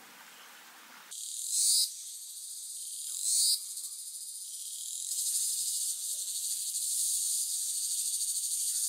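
High-pitched insect chorus, a dense steady chirring that starts suddenly about a second in and grows gradually louder, with two short, louder swells rising in pitch, at about one and a half and three seconds in. Before it comes about a second of faint running stream.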